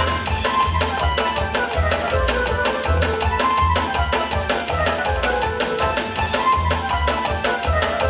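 Music with a quick, steady beat and strong bass pulses under a melody.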